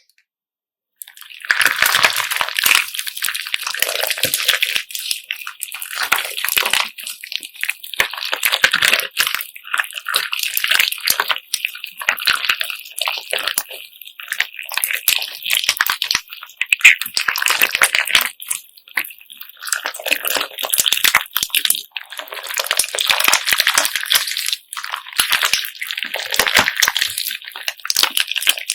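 Bead-filled slime being squished and kneaded by hand: wet squelching mixed with dense clicking and rattling of the beads, starting about a second in and swelling and easing in waves.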